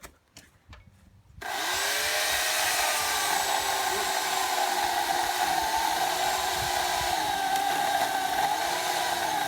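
A few light clicks, then a power saw starts abruptly about a second and a half in and runs steadily, cutting into a log, its pitch wavering slightly under load.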